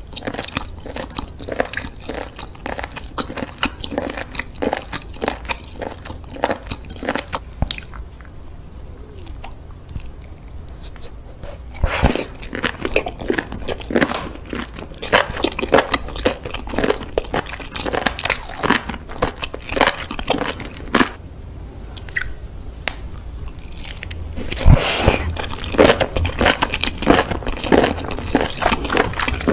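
Close-miked mouth eating sounds from chewing baby octopus in spicy red sauce: a continuous run of short sticky clicks and smacks. There is a quieter spell about a third of the way in, then louder chewing resumes with a fresh bite about twelve seconds in and another near the end.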